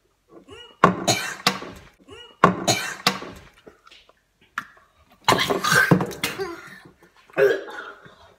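Boys coughing and gagging in four loud fits, a reaction to the taste of chewed fish-oil capsules.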